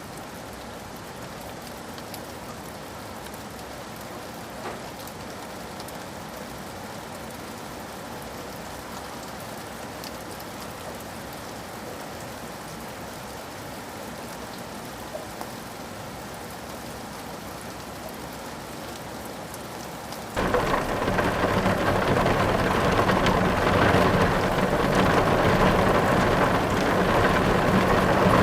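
Steady rain falling. About twenty seconds in, the sound jumps suddenly much louder into heavier rain with a low rumble of thunder underneath.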